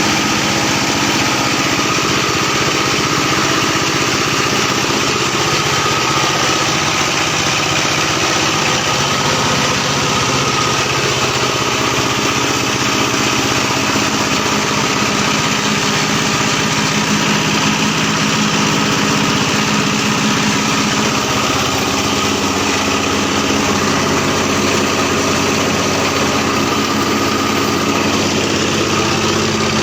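A 200 kg/hour corn cracking machine running steadily, with a continuous, even mechanical drone that does not change.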